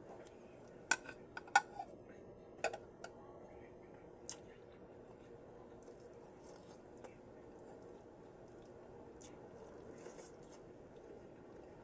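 Eating sounds close to the microphone: several sharp clinks of cutlery against a dish in the first few seconds, then faint crackly chewing.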